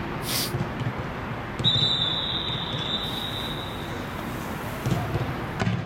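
A single long, high whistle blast, starting about one and a half seconds in and held for about two seconds, the usual signal to stop or change a drill. Under it come repeated dull thumps of footballs being passed on the pitch.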